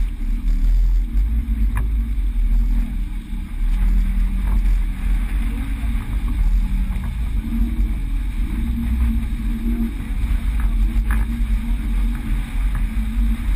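Sailboat under way: a steady low rumble of wind buffeting the microphone over water rushing along the hull, with a couple of faint clicks from the cockpit.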